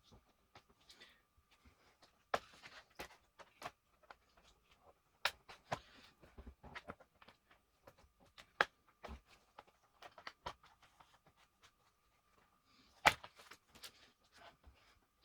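Irregular clicks, taps and knocks of an HP ProBook 650 G2 laptop's plastic case and parts being handled during disassembly, with one sharper knock near the end and a faint steady high whine underneath.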